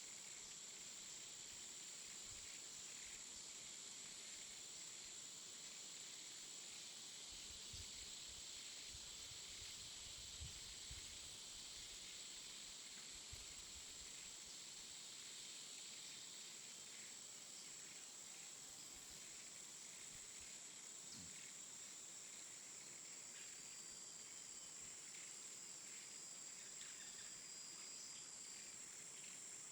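Near silence: a faint, steady high-pitched hiss, with a few soft low thumps around the middle.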